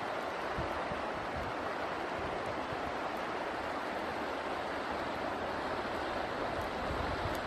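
Steady rushing hiss of water, with low, uneven rumbles of wind on the microphone.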